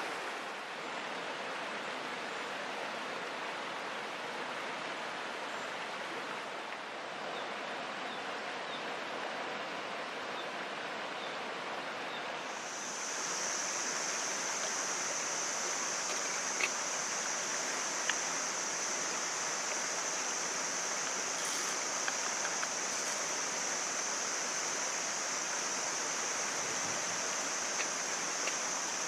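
Mountain stream rushing steadily. About halfway through, a steady high-pitched shrill hiss joins it and holds, with a few faint clicks.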